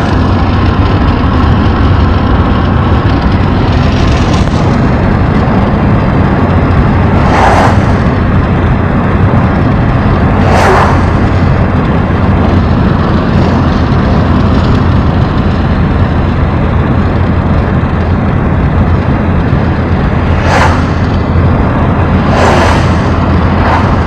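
Steady in-cabin road and wind rumble of an Opel car cruising at highway speed, with a few brief whooshes spread through it.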